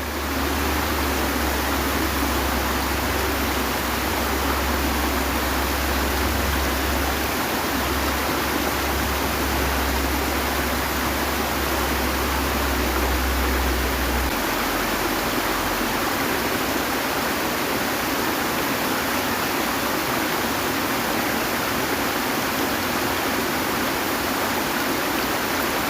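Steady rush of flowing stream water, with a low rumble underneath that stops about halfway through.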